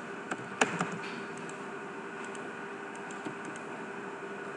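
Three sharp clicks in the first second, and a faint one a little over three seconds in, from a computer keyboard and mouse working CAD software, over a steady low hum and hiss.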